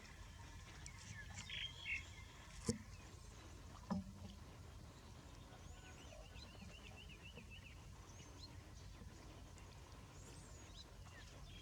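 Faint outdoor ambience with a low steady rumble and small birds chirping, including a quick run of chirps about six seconds in. Two short knocks come near three and four seconds in.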